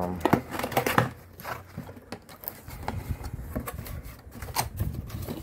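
Cardboard box being opened by hand: irregular rustling, scraping and clicks as the flaps and packaging are pulled open.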